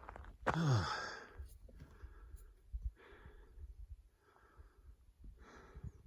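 A man's loud sigh with a falling voice about half a second in, then heavy breathing, in and out roughly once a second: breathing hard from fast uphill walking.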